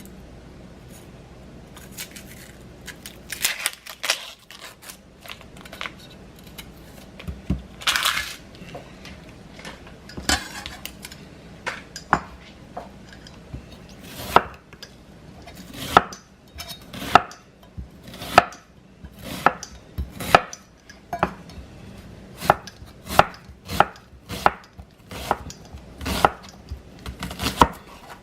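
Knife chopping onion on a cutting board: sharp knocks, scattered at first, then a steady run of about one to two strikes a second from about halfway through, with a brief scrape about a third of the way in.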